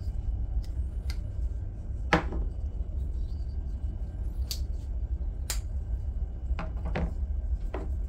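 Scattered light clicks and taps of folding pocket knives being picked up off a rubber work mat, about seven in all, the sharpest about two seconds in, over a steady low hum.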